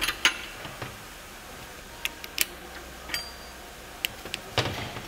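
Scattered sharp metallic clicks and taps of a hand wrench working on the cam phaser bolts of a Kia G4NA engine, as the phasers are snugged down before torquing. There are about half a dozen separate clicks, not a steady ratchet run.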